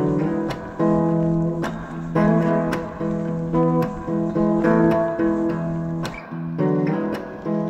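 Acoustic guitar music, chords plucked and strummed in a steady rhythm.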